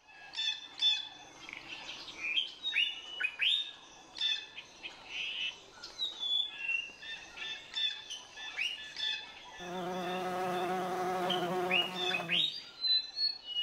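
Songbirds chirping and calling, with many short repeated chirps. A little past the middle, a steady low buzz joins them for about three seconds and then stops abruptly.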